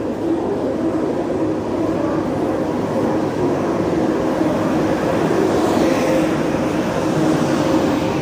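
Express train pulling into the platform: the locomotive, then its passenger coaches, rolling past at low speed. A steady rumble of wheels on the rails grows louder as the train draws alongside.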